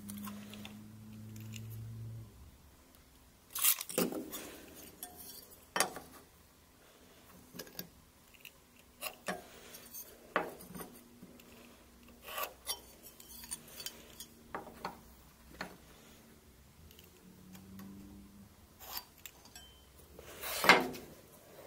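Hand tools being handled on a steel table-saw top while a wooden block is measured and marked: scattered clicks, taps and light scratches from a tape measure, a pen and a metal square, with one louder knock near the end.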